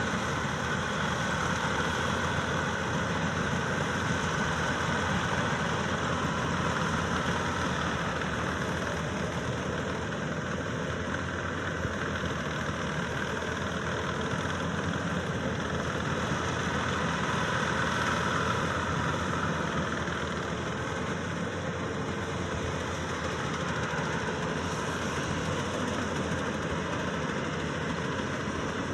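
Maxxi Bimo 102 Top combine harvester running steadily, a continuous engine and machinery drone.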